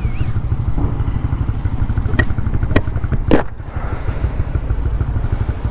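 Honda CB150R's single-cylinder engine running under way. A few sharp clicks come about two seconds in, then a louder knock a little later.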